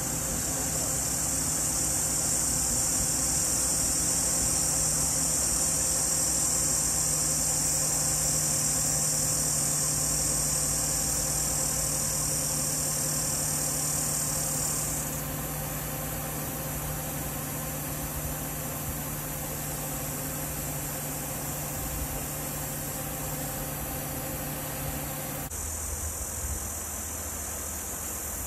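Steady hum of an idling vehicle engine, with a high, even insect buzz over it. The buzz drops away about halfway through, and near the end the sound changes abruptly, with the buzz returning and the engine hum shifting lower.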